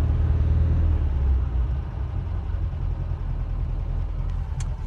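1984 Subaru GL's 1.8-litre flat-four engine idling unevenly, an idle the owner hears as unhappy valves.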